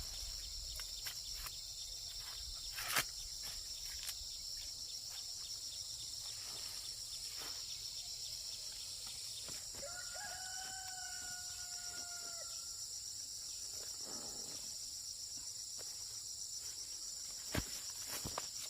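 A rooster crowing once, one long call about ten seconds in, over a steady high drone of insects. A few sharp knocks sound near the start and near the end.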